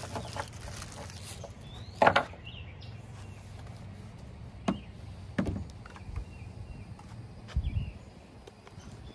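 A chainsaw being handled and turned around on a plastic pickup bed liner: several knocks and clunks, the sharpest about two seconds in, and a dull low thud near the end as it is set down.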